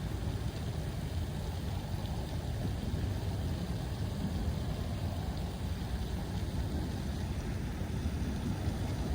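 Steady wind rumbling and buffeting on the microphone, a low rough noise with no distinct events.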